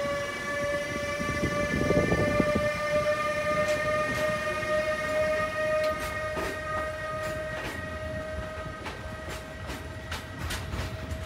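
A Siemens Vectron electric locomotive hauling a freight train of open wagons passes, with a steady high whine that rises slightly in pitch. A rumble is loudest about two seconds in. Wheel clicks over the rail joints come more often in the second half.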